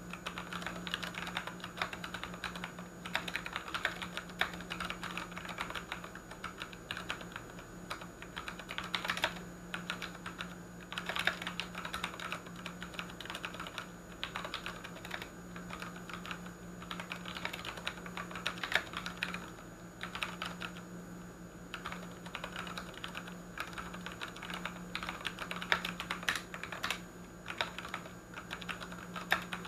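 Typing on a Ducky One 2 mechanical keyboard with Cherry MX Brown switches: fast, irregular keystroke clicks in runs, with short pauses every few seconds. A steady low hum sits underneath.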